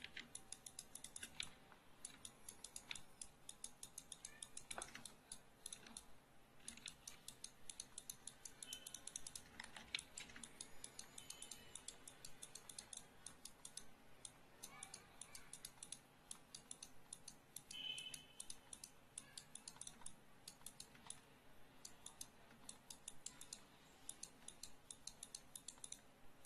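Faint, irregular clicking of a computer mouse and keyboard, in quick runs of clicks broken by short pauses.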